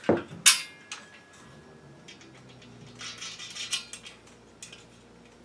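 Metal clicks and clinks as a satellite dish's LNB arm and bracket are handled and their nuts and bolts fitted: two sharp clicks near the start, the second leaving a thin metallic ring that fades over about a second and a half, then a cluster of light rattles about three to four seconds in.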